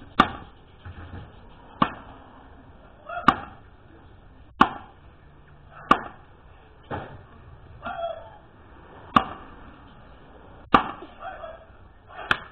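Small axe chopping into a log with an underhand stroke, the blade biting the wood with a sharp knock about every one and a half seconds, nine strokes in all.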